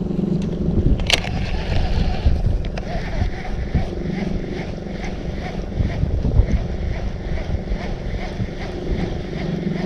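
Wind buffeting the microphone over a steady low motor hum from the fishing boat, with one sharp click about a second in.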